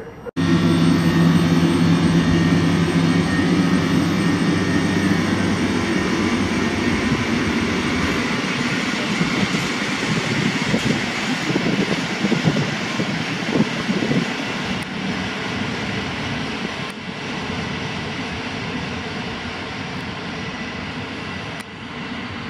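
Electric-hauled train of Intercity passenger coaches pulling out and rolling past: a steady rumble of wheels on rail, fading gradually as the last coach moves away. A low steady hum runs under it for the first eight seconds or so.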